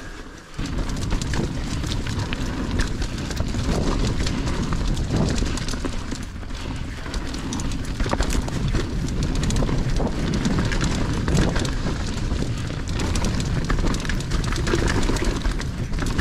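Mountain bike riding down a rough dirt trail: steady low rumble of tyres and rushing air, with many quick rattles and knocks from the bike over bumps.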